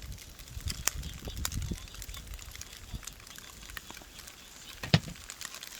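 Scattered clicks, crackles and low thumps from cooking in a wok over a campfire, with one sharp knock about five seconds in.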